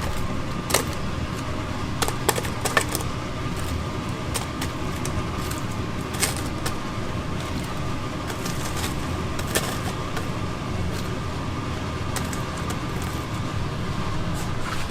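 Food-shop kitchen clatter: scattered sharp clicks and clinks of utensils or containers over a steady hum of kitchen equipment, with a faint steady tone.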